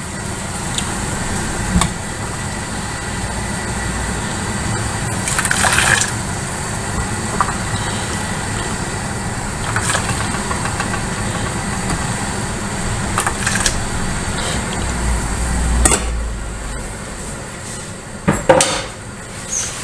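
A pan of caramelized sugar, apples and water cooking on the stove with a steady hiss and bubble. A utensil clinks against the pan a few times.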